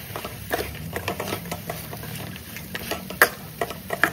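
Metal ladle scraping and clinking against a steel wok as fried banana pieces are tossed to coat them in sugar syrup. A few sharp clinks stand out, over a steady low hum.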